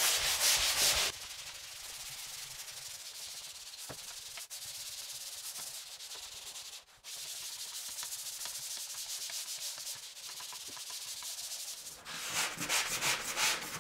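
Drywall pole sander scrubbing over dried all-purpose joint compound on a drywall patch: a steady rasping hiss. The strokes are louder in the first second, and there are louder, quicker back-and-forth strokes near the end.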